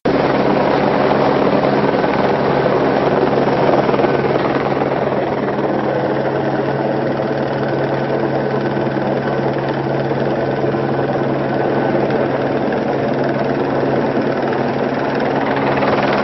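Helicopter running: a steady, unbroken engine-and-rotor noise over a constant low hum.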